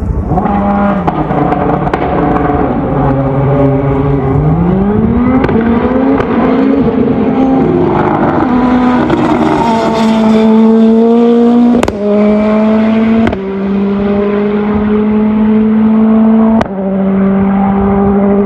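Hillclimb race car engine at high revs: the pitch sags, then climbs hard under acceleration, with three sudden upshifts, each dropping the revs before they climb again.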